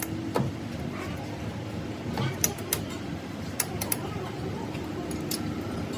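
A handful of sharp clinks and knocks, irregularly spaced, over a steady background hum.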